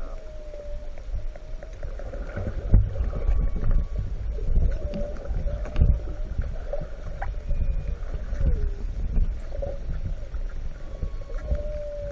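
Dolphins heard underwater: a few short, high whistles rising in pitch about two-thirds of the way through, and scattered clicks. Under them run a low rumble of water on the camera housing and a steady wavering hum.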